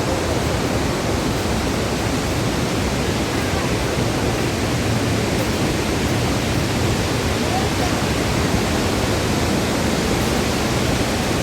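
Steady, loud rush of a large waterfall, Dassam Falls, crashing water filling all pitches evenly without a break.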